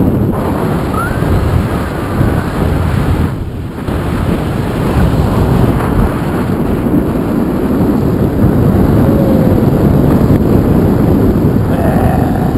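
Wind buffeting the microphone of a camera carried on a moving road bicycle: a loud, steady rumble that eases briefly about three and a half seconds in.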